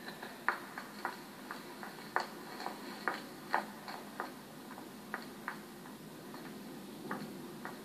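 Footsteps of two people walking on a hard floor: irregular sharp clicks, about two a second, fewer toward the end.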